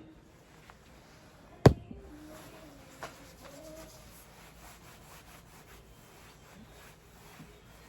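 A single sharp knock, like something hard set down or struck, with a lighter click about a second later.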